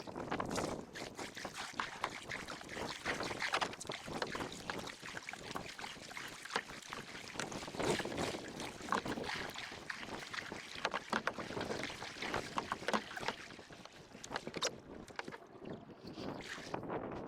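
Water splashing and sloshing with irregular knocks, mixed with wind buffeting the microphone.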